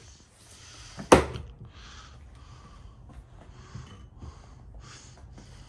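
A single sharp crack about a second in as an axe strikes a log on a chopping block, followed by several short, breathy exhalations.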